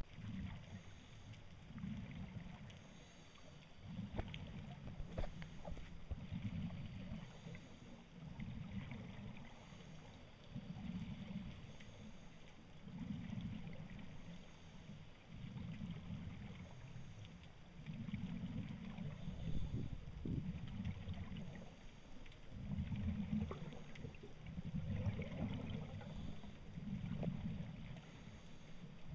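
Muffled low underwater rumbling that surges and fades about every two seconds, with a few faint clicks, as heard by a camera in a waterproof housing.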